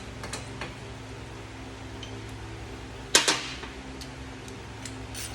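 Metal tools and engine parts being handled during a motorcycle engine teardown: a few light clicks, then one loud metallic clank with a short ring about three seconds in. A steady low hum runs underneath.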